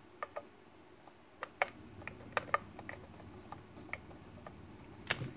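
Small, irregular plastic clicks and taps, about ten, as fingers press and seat the label on the Fishmate F14 fish feeder's timer dial, over a low rustle of handling.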